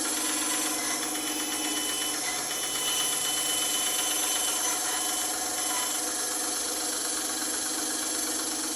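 Bandsaw running steadily, its motor and blade giving a constant hum with a broad whirr over it.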